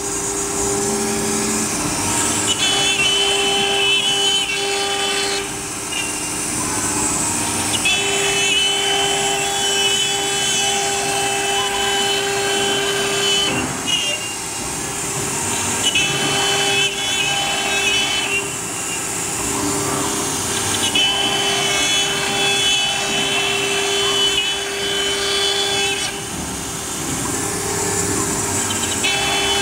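CNC router spindle running steadily at a constant whine while its bit cuts MDF, with the rough hiss of the cut. A higher whine comes in and drops out every few seconds.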